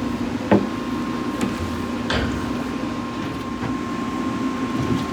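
Steady machine hum with a low drone and a constant high whine, with one sharp knock about half a second in.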